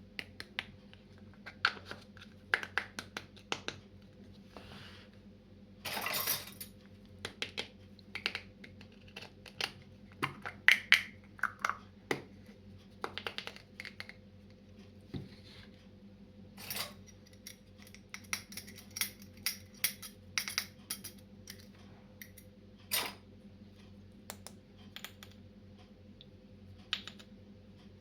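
Small plastic toy kitchen pieces clicking, tapping and clattering as they are handled and set down, in an irregular run of sharp clicks, with a short burst of rustling noise about six seconds in. A faint steady hum sits underneath.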